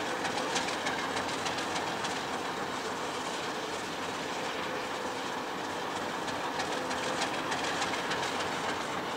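Railway wagon wheels rolling over the track with a steady rumble and quick clickety-clack clicks over rail joints: a train running past.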